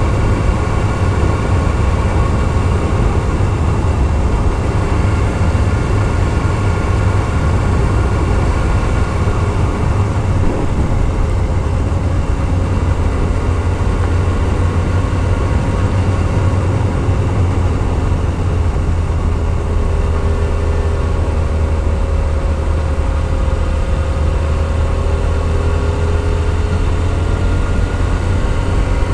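Yamaha YZF-R6S sport bike's inline-four engine running at a steady cruise under way uphill, with heavy wind rumble on the microphone. The engine note eases a little lower in pitch in the second half.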